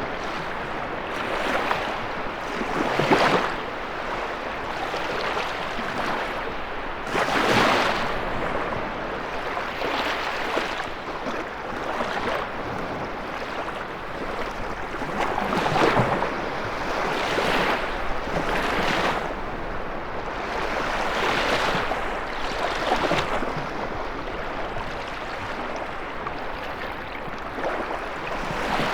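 Lake waves breaking on the shore, one surge after another every few seconds, over a steady rush of wind.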